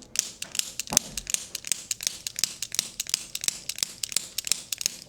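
Rapid, uneven clicking, several sharp clicks a second, from a handheld chiropractic adjusting instrument working on the back.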